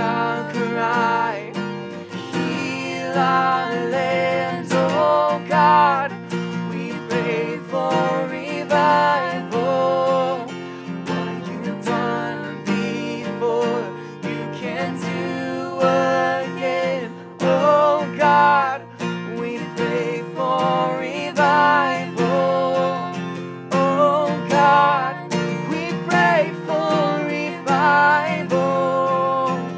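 A man and a woman singing a worship song together over a strummed acoustic guitar.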